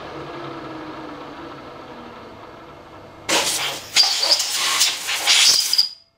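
A vertical milling machine's spindle winds down, its hum fading and falling in pitch. Then a compressed-air blow gun blasts chips out of a blind hole drilled in aluminium, in several loud hissing bursts that end with a short whistle and stop sharply.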